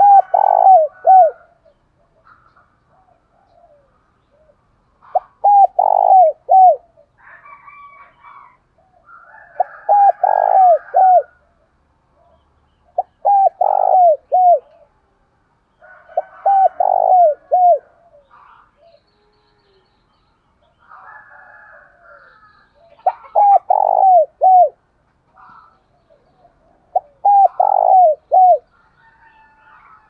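Spotted dove cooing: seven loud phrases of three or four short coos each, spaced a few seconds apart, its rapid challenge call used to provoke and lure wild doves. Fainter bird chirps come between the phrases.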